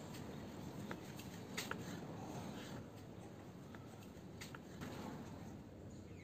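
Kitchen knife slicing raw tuna into cubes, with a few faint, scattered taps as the blade meets a plastic cutting board, over low steady background noise.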